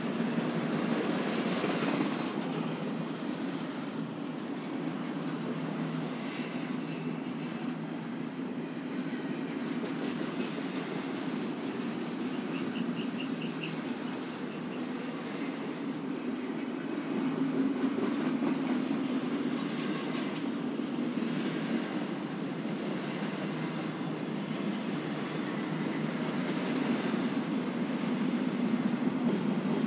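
Intermodal freight train's cars rolling past, a steady rumble of steel wheels on rail, with a brief faint squeal of wheels near the middle.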